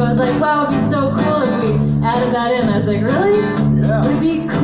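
Live acoustic guitar strumming over a five-string fretless bass, with wordless singing gliding up and down in pitch over the top.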